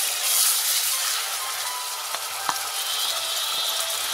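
Chopped onions sizzling in hot oil with cumin seeds and garlic in a stainless steel pot, stirred with a wooden spoon. The sizzle is loudest in the first second and eases a little after it. One sharp knock comes about two and a half seconds in.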